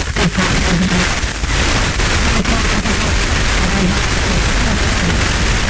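Weak, distant FM radio broadcast heard on a receiver through heavy hiss, a voice faintly audible under the noise, with several brief dropouts and crackles as the scatter signal flutters.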